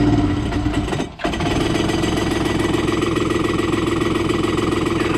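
Electric starter cranking a jet ski's two-cylinder 1100 engine with a fast, steady rhythm; the engine turns over but does not fire. The cranking breaks off briefly about a second in, then starts again.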